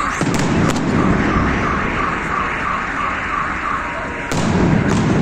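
Car alarms wailing in a rapid repeating pattern, set off by a fireworks display, over the rumbling booms and sharp cracks of the salvos. The loudest booms come near the start and again about four seconds in.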